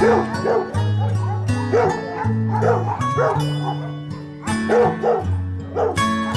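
Dogs barking repeatedly in clusters of short barks, with a lull a little past the middle, over background music with sustained low notes.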